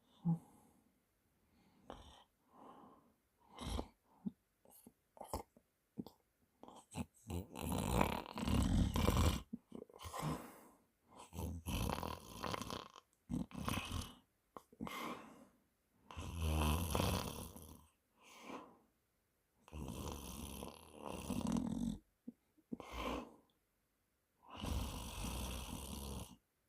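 A man snoring loudly in his sleep: an irregular run of snores of varying length with short pauses between them, some of the longer ones with a rattling flutter.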